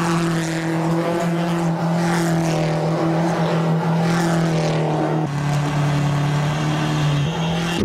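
Subaru Impreza WRX STI rally car's turbocharged flat-four engine held at a steady pitch while the car spins donuts on tarmac, tyres scrubbing. The revs dip about five seconds in and rise again near the end.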